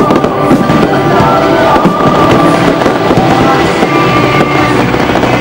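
Fireworks shells bursting and crackling in quick succession, over music playing.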